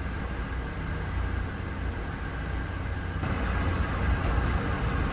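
Steady low mechanical hum with a haze of noise, growing louder and brighter about three seconds in, with a faint tick about a second later.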